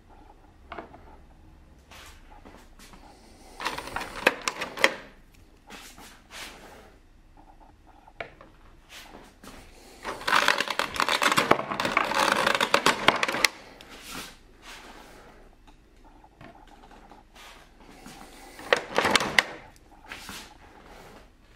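Hands handling a thin clear plastic blister tray, crinkling and clicking as small plastic toy figures are worked loose from it. The longest and loudest stretch of dense crackling falls in the middle, with shorter bursts before and after and single light taps between.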